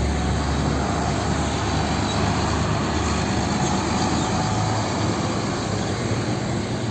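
Concrete mixer truck driving along a road: steady engine and tyre noise with surrounding traffic.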